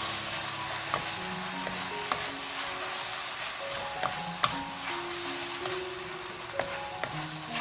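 Sliced shiitake mushrooms and vegetables sizzling in a hot stainless steel pan as they are stir-fried with a wooden spatula, with a few sharp clicks of the spatula against the pan, the loudest a little over four seconds in.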